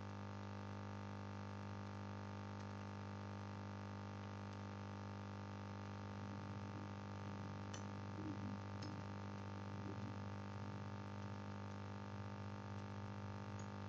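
Low, steady electrical hum with many overtones, with a few faint clicks about eight and nine seconds in.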